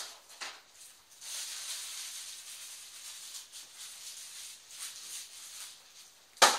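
Packaging from a TV box rustling and crinkling as it is handled, then one sharp knock near the end.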